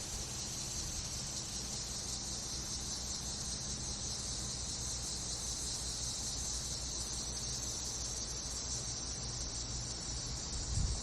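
Steady high-pitched chorus of field insects such as crickets, over a low steady buzz from a bumblebee's wings, with a few low bumps near the end.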